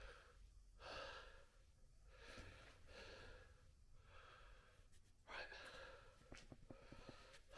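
A man breathing hard and quietly, a breath every second or so, while crawling through a low tunnel. A few faint clicks and scuffs can be heard.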